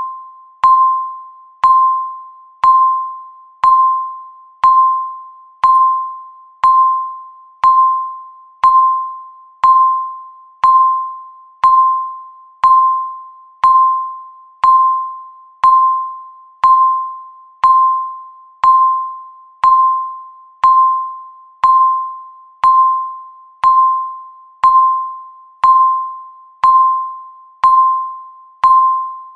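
Countdown timer's tick sound: a short, bell-like ping at one steady pitch, once every second, each dying away quickly.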